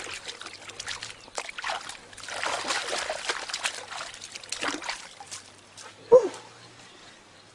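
Water splashing and trickling in irregular bursts, loudest a few seconds in, with a short pitched call about six seconds in.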